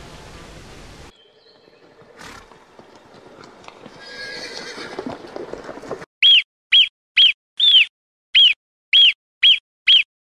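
Marmot giving its alarm call: a run of about eight sharp, high calls, each rising then falling in pitch, roughly two a second, starting about six seconds in and preceded by a few seconds of faint outdoor sound.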